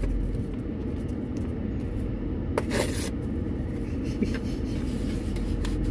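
Steady low rumble of a car idling, heard from inside the cabin. About two and a half seconds in comes a short rustle of paper as an envelope is torn open, followed by a few faint paper ticks.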